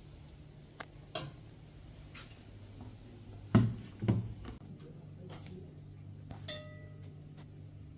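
Spoon and crockery clinking as cooked rice is dished from a stainless steel pot onto ceramic plates: scattered light clinks, two heavier knocks about halfway through, and a ringing clink near the end.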